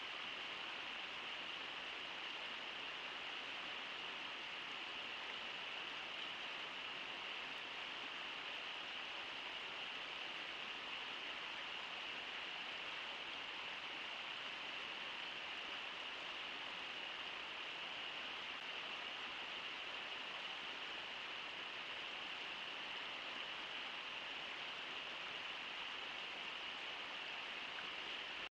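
River water rushing steadily, an even hiss with no splashes or other events standing out.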